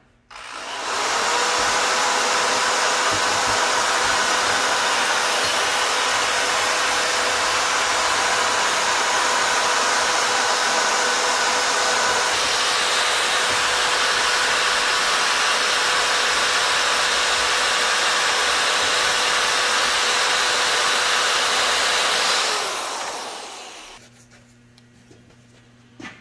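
Corded electric die grinder spinning up within the first second, running steadily with a high motor whine for about twenty seconds, then winding down. A fine abrasive attachment is scrubbing corrosion off the aluminium face of a BMW M10 cylinder head.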